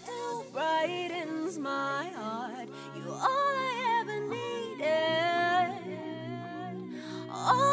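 Background music: a song with a sung vocal line over sustained low notes.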